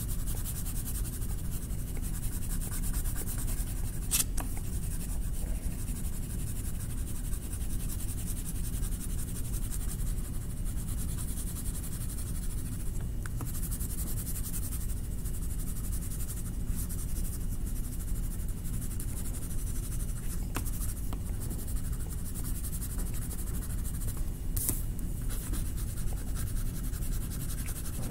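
Colouring on a paper art card: a drawing stick rubbing steadily back and forth as the sky is filled in blue, with a few light ticks along the way.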